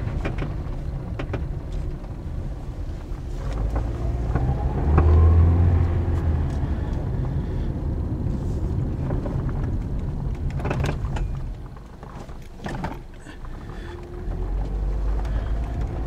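A 2009 Toyota Corolla being driven, heard from inside the cabin: steady engine and road rumble, the engine note rising as the car accelerates about four seconds in, and a few short sharp knocks. The knocks are a clunk that the owner puts down to a worn sway bar link.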